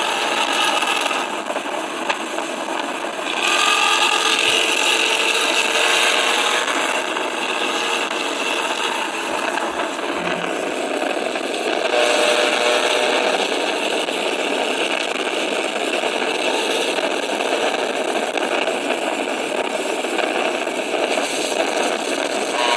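Tinny, raspy engine and exhaust sound of a diesel bus accelerating just ahead, with steady road and traffic noise.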